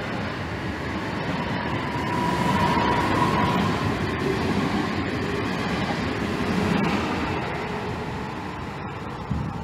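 Two coupled Newag Impuls electric multiple units departing and running past, wheels rumbling on the rails with an electric whine that rises slightly in pitch as they gather speed. The sound fades in the last couple of seconds as the last car moves away.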